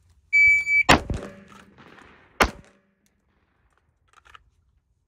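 A shot timer's start beep, one steady high tone about half a second long, then a carbine shot, and about a second and a half later a single pistol shot fired after the rifle-to-pistol transition.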